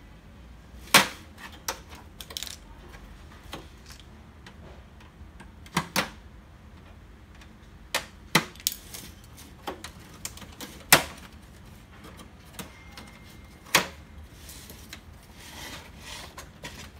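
Plastic housing of an HP LaserJet M135a printer clicking and snapping as its cover is worked loose with a screwdriver and a prying tool. About a dozen sharp clicks come at irregular intervals, some in quick pairs, the loudest about a second in and again about eleven seconds in.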